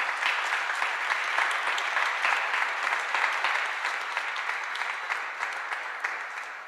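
Audience applauding, many hands clapping at once. The applause starts abruptly, stays full for several seconds, then thins and dies away near the end.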